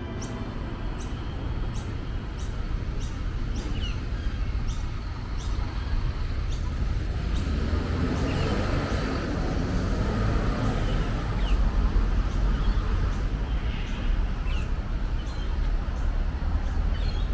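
Outdoor traffic rumble that swells as a vehicle passes about halfway through, with birds chirping now and then. Footsteps tick about twice a second through the first half.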